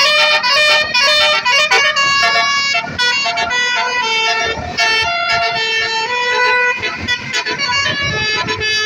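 Indonesian 'telolet' basuri multi-tone bus horn playing a tune: loud horn notes stepping quickly from pitch to pitch, several tones sounding together.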